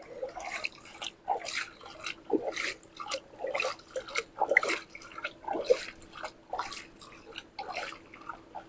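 A toy truck being washed: irregular small splashes, drips and wet scrubbing sounds, several a second, over a faint steady hum.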